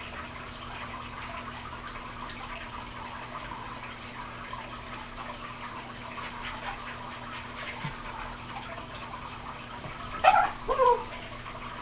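Cairn terrier giving two short barks about half a second apart, around ten seconds in, over a faint steady hiss.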